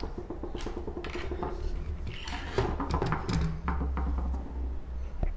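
Small clinks and knocks of objects being handled on a desk, over a low steady hum.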